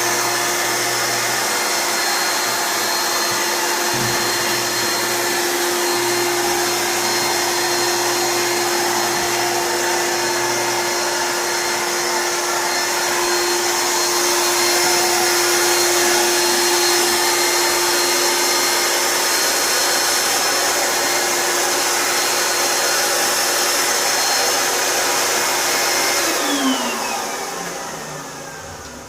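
Air-sled appliance mover's blower running steadily, feeding air to the skids that float the laundry machine. Near the end it is switched off and spins down with a falling whine.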